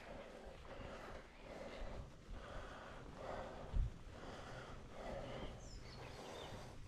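A cyclist's heavy, rhythmic breathing, a hard puff about every second and a half, from the effort of pedalling up a very steep climb. Wind rumbles low on the microphone, and there is one short low thump a little past the middle.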